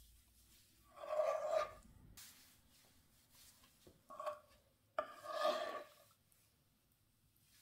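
Wooden spoon scraping against a frying pan while scooping out a creamy sauce. There are three rasping scrapes, about a second in, around four seconds and around five seconds, and the last is the longest.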